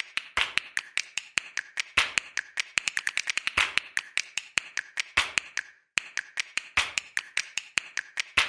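A rapid, irregular run of sharp taps or clicks, several a second, with a short pause about six seconds in.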